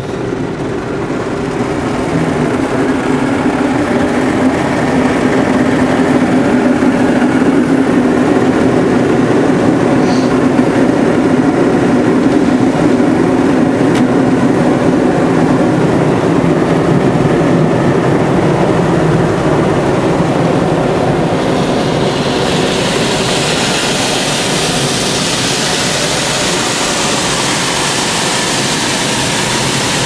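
IMO tunnel car wash's rotating brushes and water spray working over the car, heard from inside the cabin as a steady, loud wash noise. About two-thirds of the way through, a hissing spray grows louder.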